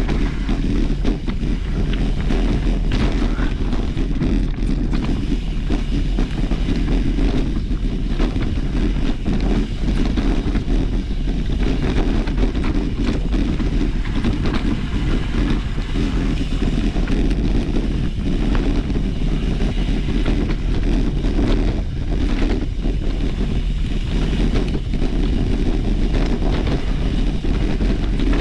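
Mountain bike ridden over rough trail: a steady low rumble of wind on the camera microphone, with constant small rattles and knocks from the bike.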